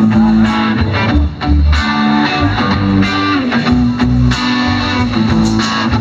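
Live rock band playing over a PA system: electric guitar to the fore over a bass line, with a steady beat.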